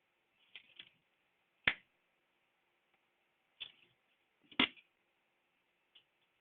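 Scattered sharp clicks and taps of a metal blade prying and chipping pieces of an iPhone X's laser-loosened back glass, with two louder snaps, one about one and a half seconds in and one about four and a half seconds in.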